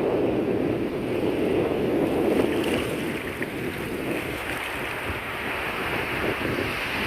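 Sea waves surging and washing on a beach, with wind buffeting the microphone. The surge is strongest over the first two seconds or so, then eases.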